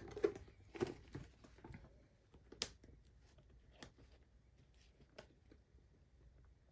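Soft handling sounds of a small photo slide card being fitted into a notebook cover: a scattering of light taps and rustles, the sharpest click about two and a half seconds in.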